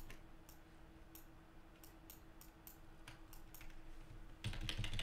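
Computer mouse and keyboard clicks: light separate clicks every fraction of a second, then a denser, louder run of key presses near the end.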